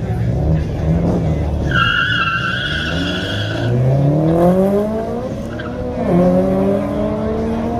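Drag-racing cars launching off the line at full throttle: tyres squeal for about two seconds, then the engines rise steadily in pitch, drop with a gear change about six seconds in, and climb again.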